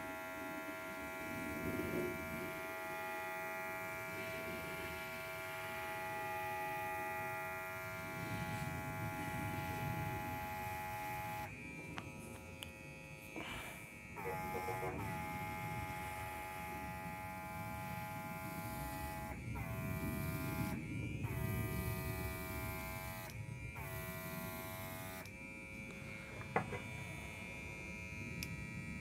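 Worx WX742 Maker X airbrush's battery-powered compressor running with a steady electric buzz, with the hiss of air from the nozzle as paint is sprayed. In the second half the buzz cuts out briefly several times and winds back up each time.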